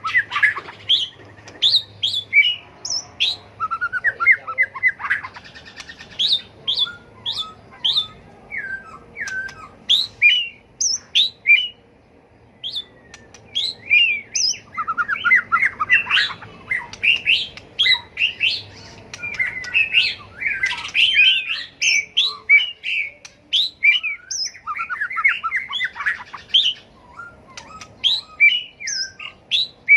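White-rumped shama singing a long, varied song of whistled notes and rapid trills, with a brief pause partway through.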